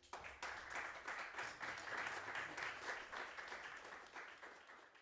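Audience applauding with many hands clapping, easing off slightly near the end.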